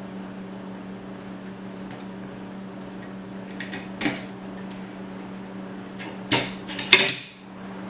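Small metal hardware knocking and clinking against an aluminium extrusion as a spool holder is fitted to a 3D printer frame: one sharp knock about four seconds in, then a quick cluster of louder clinks a little past six seconds, over a steady low hum.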